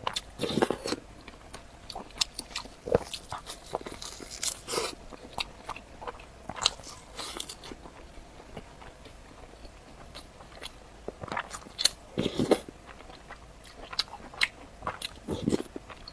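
Close-up eating: a person biting and chewing, with irregular crunches and wet mouth clicks, the loudest bites coming about half a second in, about twelve seconds in and near the end.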